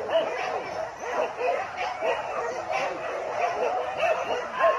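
A pack of boar-hunting dogs baying and yelping without a break, many voices overlapping.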